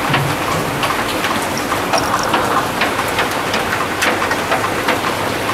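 Steady rain falling hard, with many sharp taps of drops hitting close by.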